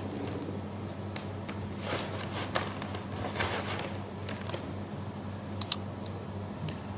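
Rustling and handling noise with a few small clicks, then two sharp clicks in quick succession about five and a half seconds in, over a steady low hum.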